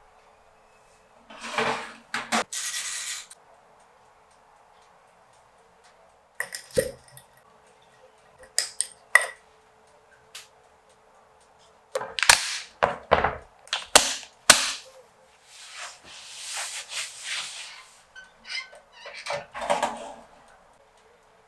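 Kitchen handling sounds: rustles, knocks and sharp glassy clicks and clinks of glass jars and containers being handled, several in quick succession around the middle, then a longer rustle. Near the end comes a short rattle as a toaster oven is loaded.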